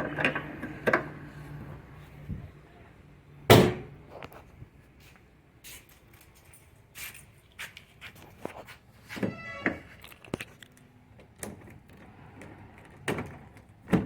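Car door of a Ford Figo shutting with a single loud thunk about three and a half seconds in, followed by scattered light clicks and knocks, including a quick rattling run of clicks near the middle.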